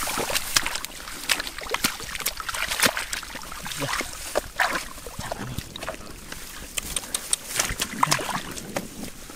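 Dry rice stalks and grass rustling and crackling in irregular sharp clicks, with small splashes of muddy water as hands grope in a shallow pool.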